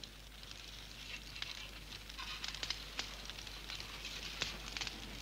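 Faint crackling of a fireplace fire: scattered small pops over a low hiss.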